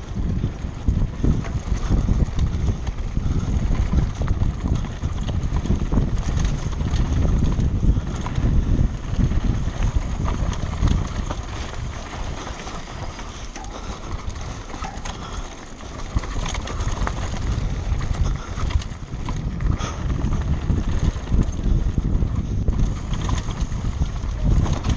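Wind rushing over a moving microphone, with continual rattling and knocks as it is carried fast over rough ground. It eases for a few seconds around the middle, then picks up again.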